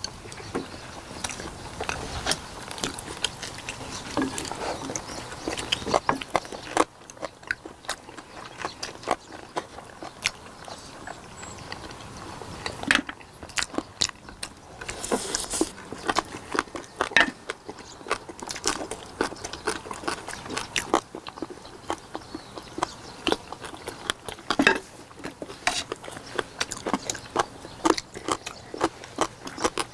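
People eating boiled pig's trotters (jokbal): close-miked chewing and biting on meat and skin, with many short, sharp clicks and smacks at irregular intervals.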